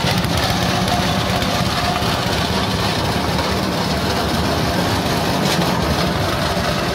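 Cocopeat machine (coconut-husk grinder) running steadily while grinding husk, a continuous machine drone with a fast, even flutter.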